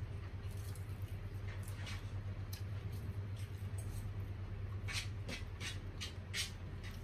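Close-up eating sounds of a person chewing bone-in fried chicken: soft wet smacks and mouth clicks, with a cluster of sharper smacks about five to six and a half seconds in, over a steady low hum.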